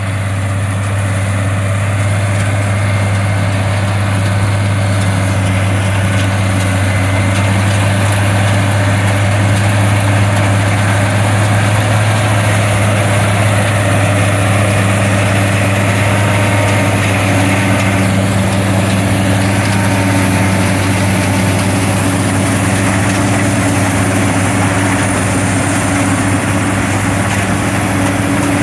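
International 656 tractor engine running steadily under load, driving a McCormick model 82 pull-type combine harvesting wheat, its machinery adding to a continuous even drone.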